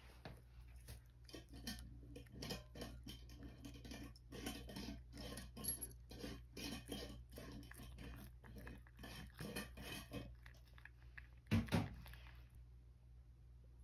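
A cat chewing dried sardines (niboshi): a quick run of small, crisp crunches that stops about ten seconds in. Near the end comes a louder double thump.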